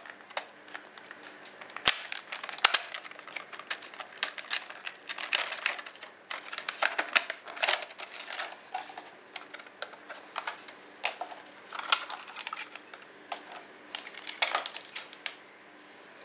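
Stiff clear plastic blister packaging being handled and pried open, giving irregular sharp crackles and clicks.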